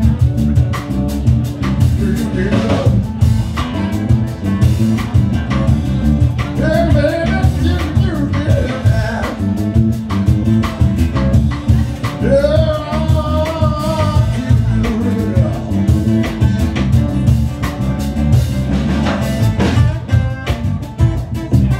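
Small band playing live: drum kit, electric guitar and acoustic guitar, with a man singing phrases into a microphone now and then over the steady beat.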